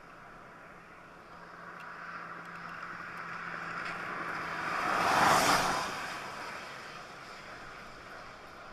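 A road vehicle passing by: its noise builds over a few seconds, peaks about halfway through, then fades away.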